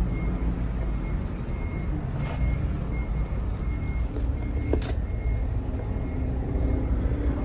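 A large engine running steadily, with a short high beep repeating throughout and two sharp knocks.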